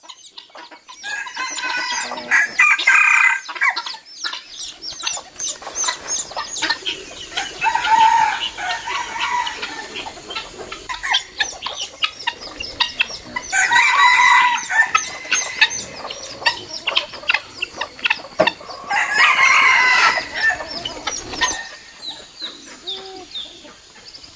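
A rooster crowing three times, about two seconds in, midway and near the end. Rapid clucking and cackling of farm fowl fills the gaps between crows.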